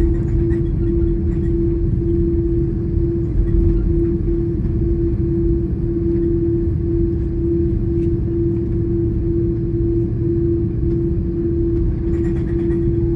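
Cabin noise of an Airbus A330-300 taxiing, heard from inside over the wing: the turbofan engines at idle give a loud, steady hum that pulses slightly, over a low rumble.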